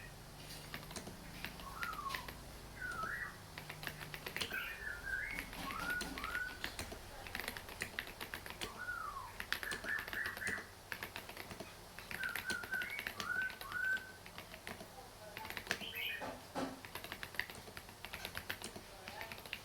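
Typing on a mechanical keyboard fitted with a mix of Domikey and SP keycaps: a steady run of quick key clicks. Short whistled chirps, like a bird's, come in every second or two.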